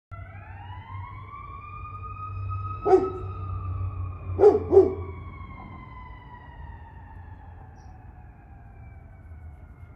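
A siren winds up and then winds slowly down in one long, unbroken wail. A dog barks once about three seconds in, then twice in quick succession about a second and a half later.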